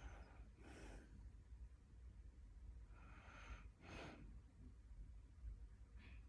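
Faint, slow sleep breathing with light snoring. Twice there is a short puff out, about three seconds apart, the second preceded by a drawn-in, slightly snoring breath.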